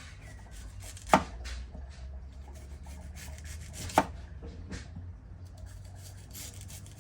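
Knife slicing bell pepper and onion on a cutting board: a run of soft cutting strokes, with two sharp knocks of the blade on the board about a second in and about four seconds in.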